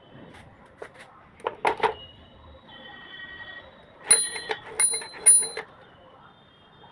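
Godrej Prima manual typewriter being worked: a few mechanical clacks, then its carriage bell rings three times amid metallic clatter in the second half.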